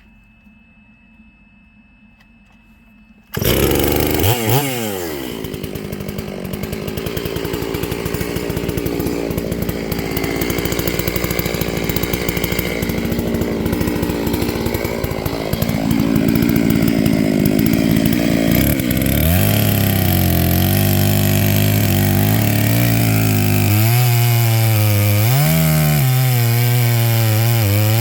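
Chainsaw running at full throttle, cutting into a bald cypress trunk. It comes in suddenly and loud about three seconds in, and in the second half the engine pitch wavers and dips as it labours in the cut.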